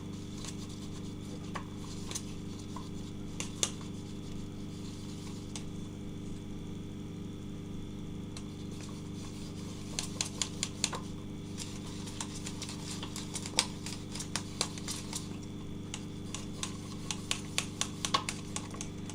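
Pencil stirring a runny slime mixture in a container, clicking and tapping against its sides in irregular clusters, over a steady low hum.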